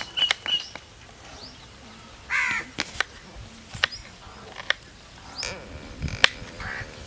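Knife blade striking a plastic cutting board as a green bell pepper is chopped: sharp separate clicks, a quick few at first, then spaced about a second apart. A harsh bird call sounds once, about two and a half seconds in.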